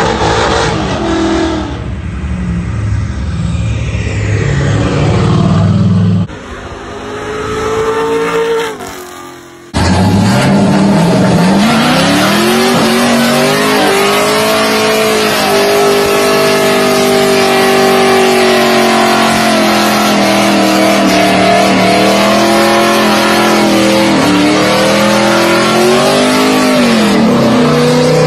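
Cars doing burnouts: engines revved hard with the rear tyres spinning and squealing. After two short cuts, one car holds a long burnout from about a third of the way in, its engine held at high revs with brief dips, over a steady hiss of spinning tyres.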